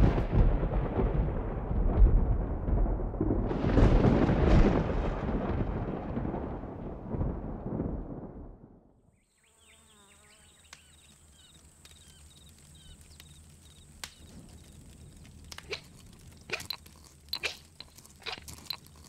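A loud, long rumbling blast, like thunder or an explosion, that swells about four seconds in and fades away by about nine seconds. Then a quiet outdoor ambience with a faint steady high whine, and a run of short sharp knocks and scrapes in the last few seconds, from stone-age hand work such as whittling a stick or pounding with a stone pestle.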